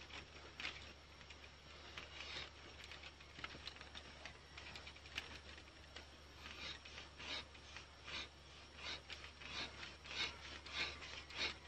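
Wooden stick of a fire plow rubbed back and forth along the groove of a wooden fireboard, the friction method of making fire. Faint scraping strokes, slow at first and quickening toward the end.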